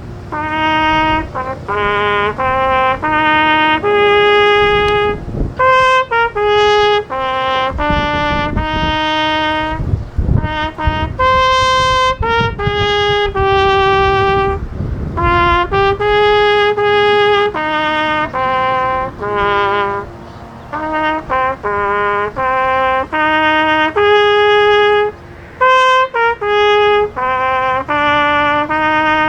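Solo trumpet playing a slow melody, one sustained note at a time with short breaths between phrases.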